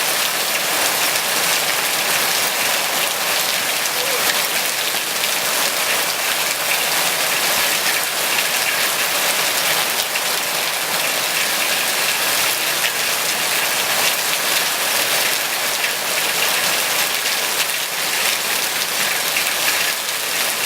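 Heavy rain falling steadily, a dense even hiss of countless drops.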